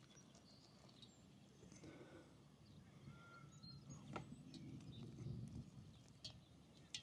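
Near silence with a few faint clicks and light handling noise; the clearest click comes about four seconds in.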